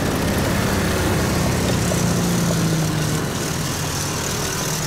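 Motorcycle-and-sidecar engines running steadily, a low even engine drone.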